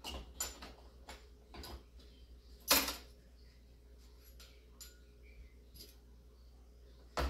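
Clicks and small knocks of hard computer parts being handled during disassembly, with one louder knock about three seconds in and another near the end.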